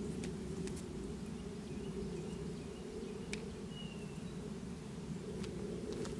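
Steady low outdoor background drone, with a few faint short high chirps and scattered light clicks.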